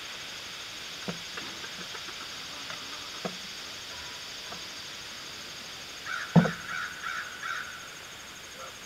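Outdoor ambience with a steady high hiss and a few light knocks. About six seconds in, the loudest knock comes, followed by a bird calling harshly several times in quick succession.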